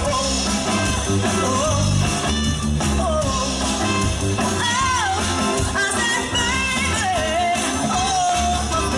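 Live rock band playing: a woman singing lead over electric bass, guitar, drums and trumpet.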